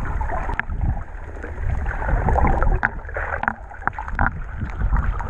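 Water sloshing against the microphone: a steady low rumble with scattered clicks and bubbling.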